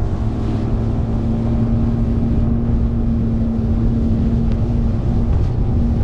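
Bass boat's outboard motor running at high cruising speed with a steady pitch, the hull rushing and slapping through choppy water.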